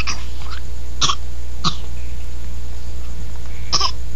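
A toddler makes four short throaty coughs, one at the start, two close together about a second in and one near the end, over a steady low hum.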